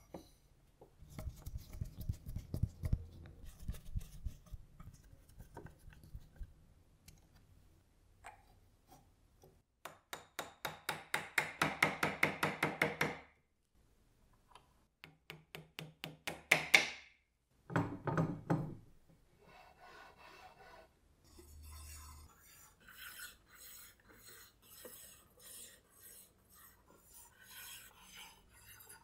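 Foosball table being assembled: steel rods rubbing and scraping as they slide through the wooden frame and the plastic players, with handling knocks. Near the middle there are two runs of rapid, even clicking, the first about three seconds long, then lighter scattered clicks.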